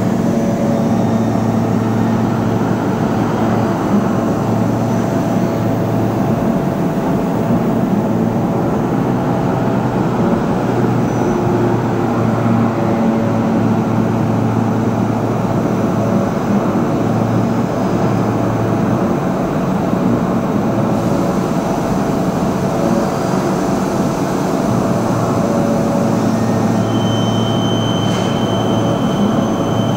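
Doosan Puma MX2500 CNC multitasking turning center running: a steady mechanical hum with several held low tones. A higher steady whine joins a few seconds before the end.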